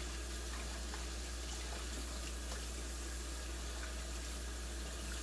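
Kitchen tap running steadily into the sink while raw chicken gizzards are rinsed and picked clean by hand under the water.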